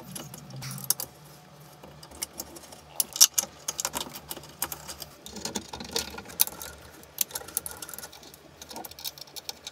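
Irregular small metallic clicks and taps of hand assembly: screws, a hand tool and 3D-printed plates being handled and fitted onto aluminium extrusion.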